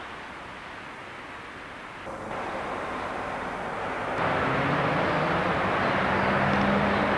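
Outdoor background noise that jumps up abruptly twice, then from about four seconds in a tram's steady rolling rush with a low, even motor hum, growing louder.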